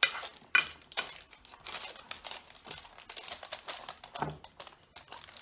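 Parchment paper crinkling and rustling, with irregular light clicks and taps, as crumbly oat and peanut butter mix is pressed down by hand into a paper-lined baking pan.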